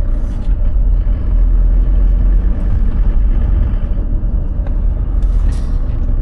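A Volkswagen T4 van's turbo-diesel running, a steady low rumble, after a clutch bracket repair that the owner finds perfect.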